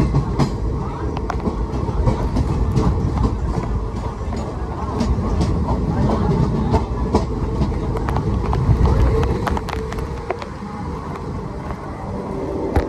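Indian Railways train rolling through a station, with a steady rumble and many sharp clicks of wheels clattering over rail joints. The sound eases a little near the end.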